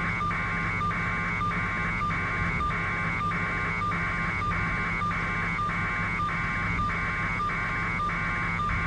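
A repeating electronic warbling tone, each pulse about half a second with a short gap, about five pulses every three seconds, over a steady low hum.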